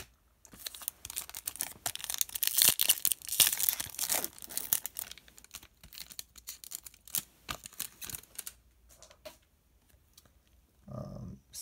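A foil trading-card pack wrapper being torn open and crinkled for a few seconds, followed by scattered light clicks and rustles as the cards are handled.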